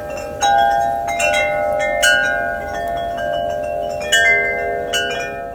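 Wind chimes ringing: several metal tones struck again and again at uneven moments, each note ringing on and overlapping the next, over a steady rushing noise.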